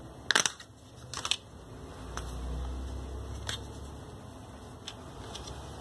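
Plastic clicks and handling noise from a Samsung Galaxy J1 2016 being opened and its battery taken out: a few sharp clicks, the loudest two in the first second and a half, with a low rumble of handling in the middle.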